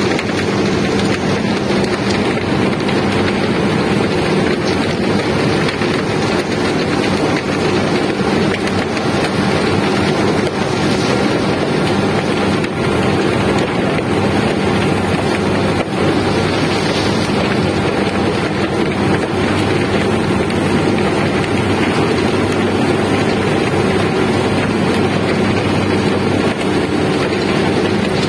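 Steady, loud drone of heavy machinery in a sugar mill cane yard, where overhead cane-unloader cranes are working. Under a constant rushing noise, a low hum holds at a couple of fixed pitches throughout, with no clear starts or stops.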